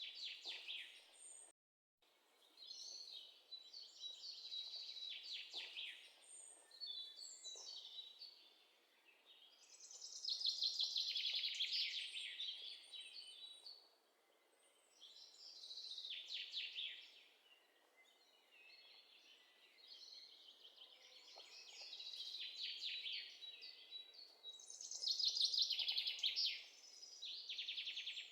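A songbird singing: repeated fast trilled phrases, each about two seconds long and dropping in pitch, coming every few seconds against faint outdoor background noise.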